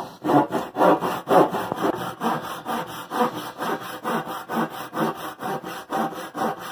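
Handsaw crosscutting a pine 1x4 board to length, in rhythmic back-and-forth rasping strokes, about two to three a second.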